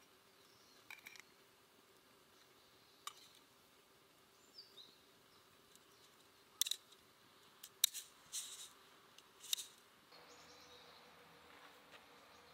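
Flat metal spatula scraping and clinking in a small metal pan of green coffee beans, with the beans rattling: a handful of short, sharp scrapes, most of them between about six and ten seconds in. Near the end a faint steady hiss with a low hum takes over.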